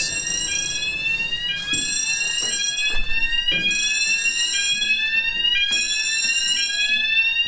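Fire alarm sounders giving a repeating rising sweep tone, together with fire alarm bells ringing on and off about once a second. This pulsed bell tone is the pre-discharge warning of a gas suppression system counting down to release.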